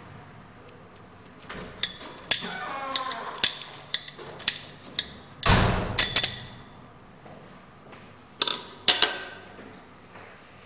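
Steel adjustable wrenches clinking and knocking as they are handled and set down on a hard surface: a run of sharp metallic clinks with brief ringing, a heavier knock and scrape about halfway through, and two more clinks near the end.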